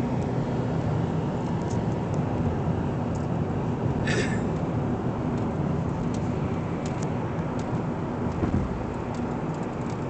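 Steady road and engine noise inside a car cruising on a highway: a low drone under an even tyre hiss, with a brief higher hiss about four seconds in.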